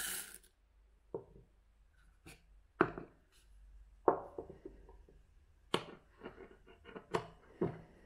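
Coffee beans poured into the hopper of a Timemore hand grinder with a short rattle at the start, then a series of sharp knocks and clicks as the bowl is set down and the metal grinder body is handled and its crank handle fitted.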